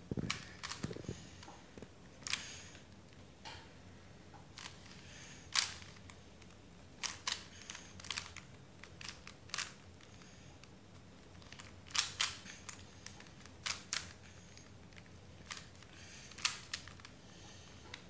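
Plastic 3x3 Rubik's cube being turned by hand: sharp clicks of the layers snapping round, in irregular clusters with short pauses between.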